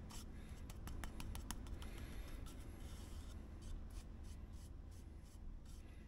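Paintbrush strokes brushing a thinned PVA glue and water mix onto MDF to seal it: faint, irregular short swishes of the bristles on the board.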